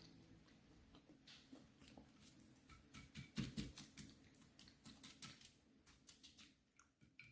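Faint, irregular clicks and crackles, with a soft low thump about three seconds in, fading out near the end.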